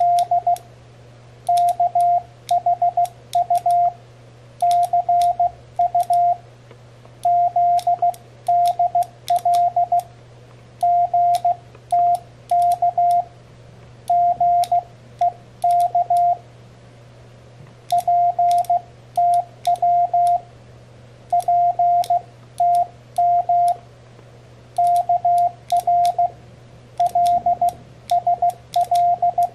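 Morse code keyed on a homemade CW paddle key made from two micro switches: a steady mid-pitched sidetone beeping in short groups of dots and dashes with brief pauses between characters, and a sharp click from the switches at each element.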